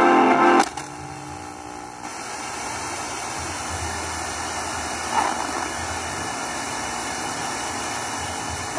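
Sony ICF-7600A transistor radio hissing with static between stations as it is tuned. A station's music cuts off abruptly about half a second in, leaving steady hiss.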